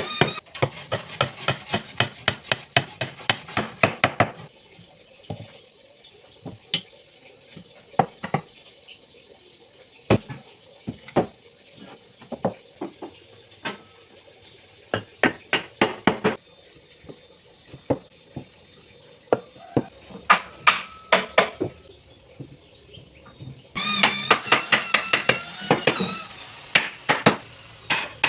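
Irregular sharp knocks and clattering from hand work on a workshop build, coming in quick clusters with quieter gaps between. A faint steady high whine runs under the first half and stops about halfway through.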